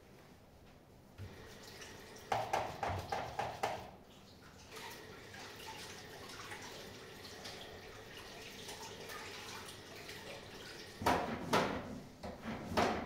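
Water running from a tap into a restroom sink as hands are washed: a steady hiss through the middle, with clusters of louder sharp splashing and handling sounds about two seconds in and again near the end.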